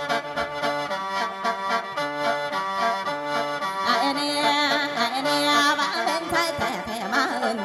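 Mor lam music: a khaen (free-reed bamboo mouth organ) plays a steady, reedy melody over a regular beat. About four seconds in, a woman's voice joins, singing in wavering, ornamented lines.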